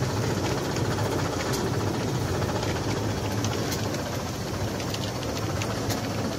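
GZPK370 high-speed rotary tablet press running: a steady low mechanical hum with scattered sharp clicks.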